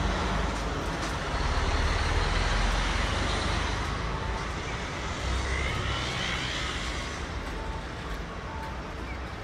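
Outdoor city ambience: a steady low rumble of distant traffic and general street noise, loudest over the first few seconds and easing off slightly after.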